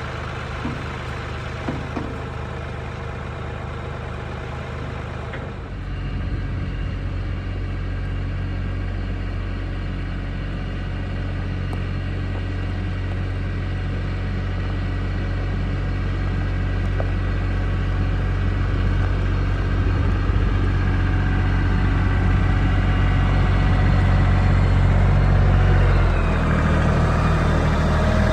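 Kioti CK3510SE compact tractor's diesel engine idling. About five seconds in it picks up and runs louder and heavier, then keeps growing slowly louder until a brief drop near the end. A couple of light knocks sound in the first two seconds.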